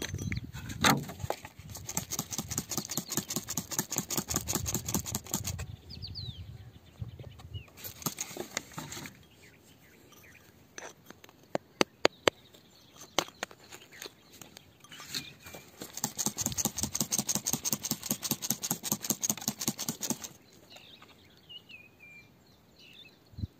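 A small metal pick and fingertips scratching through dry, crumbly soil, in two long runs of rapid scraping strokes. Around the middle come a few sharp clicks as the pick's tip knocks against a crystal.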